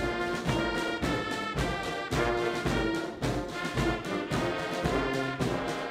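Military brass band playing a march: sustained brass chords over a steady, regular drum beat.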